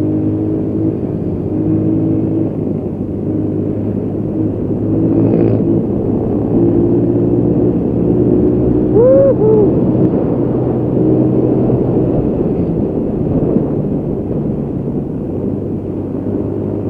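Motorcycle engine running steadily while riding, its pitch shifting slightly with speed, over a low wind rumble on the camera microphone. A brief high rising-and-falling chirp, twice, about nine seconds in.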